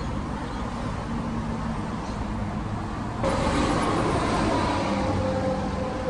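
Steady road-traffic rumble from cars passing on the road below. About three seconds in, the sound jumps louder and a steady hum-like tone joins the traffic noise.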